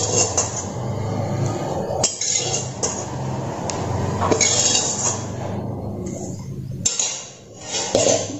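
Fried mushrooms being spooned into a pan of curry: a spoon clinks and scrapes against a bowl and the pan a few times over a steady rushing background.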